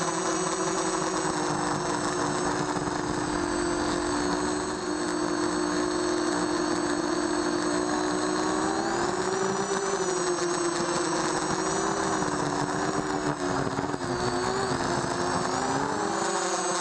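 Micro quadcopter's 2000 kV brushless motors and 5-inch Gemfan props whining steadily in flight, heard from the onboard camera, with the pitch rising and falling a few times, notably rising about nine seconds in.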